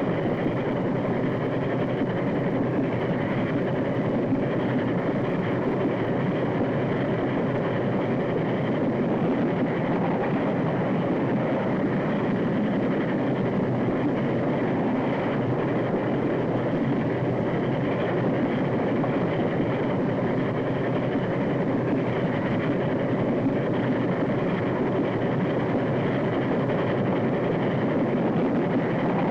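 A train running at speed: a steady, unbroken rushing noise, dull and muffled as on an early sound-film track.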